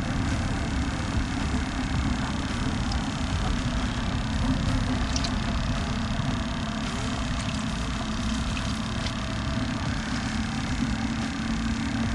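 Battery aerator pump of a live-bait bucket humming steadily under a low rumble, with a few faint water splashes about midway.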